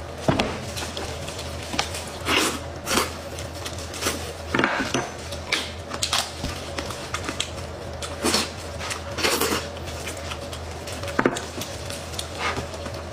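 Close-miked eating sounds: wet chewing and smacking of braised meat and crisp lettuce, with the crinkle of plastic gloves as the meat is pulled apart. These come as short, irregular bursts, about one or two a second, over a steady low hum.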